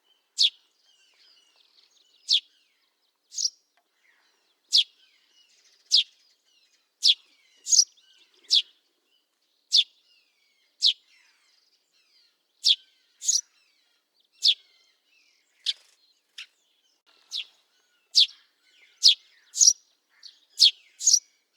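Eurasian tree sparrow calling: short, sharp chirps that drop quickly in pitch, repeated irregularly about once a second and sometimes in quick pairs, with fainter chirping behind.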